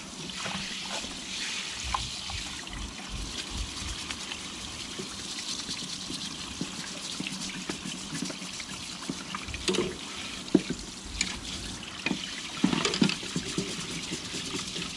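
Water running from a hose into a plastic utility sink while a small stiff brush scrubs wet cork rod grips, with a few light knocks a little past the middle.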